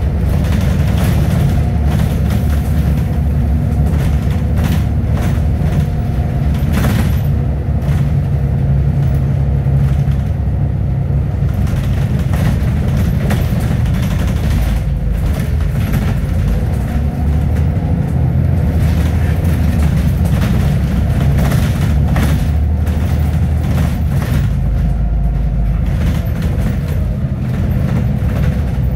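Double-decker bus heard from its upper deck while on the move: a steady low engine rumble with a faint whine, and scattered rattles and knocks from the body, the clearest about seven seconds in.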